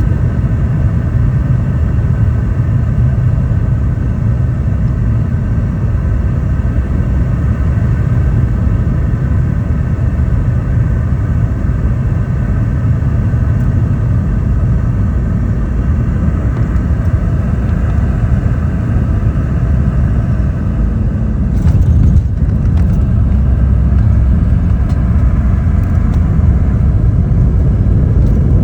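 Cabin noise of a Boeing 717-200 airliner during landing: a loud, steady rumble with the whine of its rear-mounted Rolls-Royce BR715 engines. About two-thirds of the way in there is a brief rattle, and after it the rumble runs louder.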